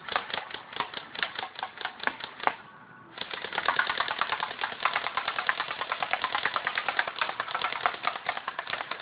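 Double Eagle M85 airsoft gun firing rapidly: a run of about two and a half seconds, a short pause, then a long, continuous burst of quick, even clicks.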